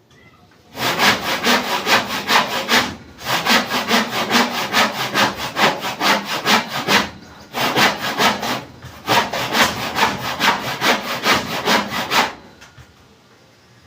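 Hand saw cutting through wood in quick, even back-and-forth strokes, about three to four a second, with a few brief pauses, stopping about twelve seconds in.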